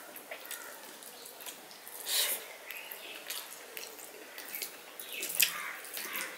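Fingers mixing rice and vegetable curry on a steel plate: soft, wet squelching and small clicks, with a louder wet squish about two seconds in and another near the end.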